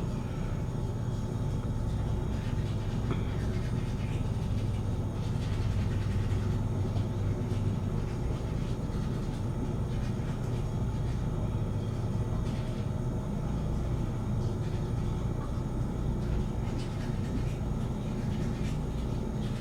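Steady low rumble of distant jet aircraft engines, holding level with no rise or fall.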